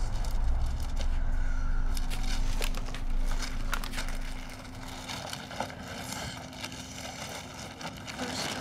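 Shop interior sound: a steady low hum with scattered small clicks and rustles, under a low outside rumble that fades away about halfway through.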